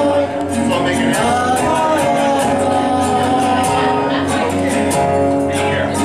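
Live acoustic song: a man singing over acoustic guitar, with a steady rhythm running underneath.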